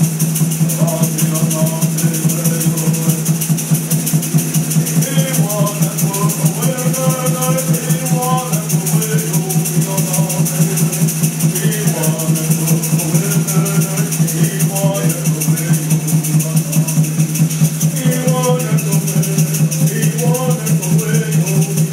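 A hand drum song: a frame drum beaten in a steady, even rhythm with a rattle shaking along, and voices singing in phrases on and off over the beat.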